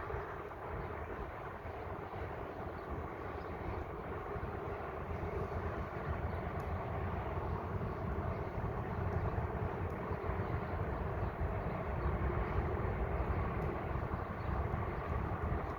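Steady rumble and hiss of vehicle traffic, slowly getting a little louder.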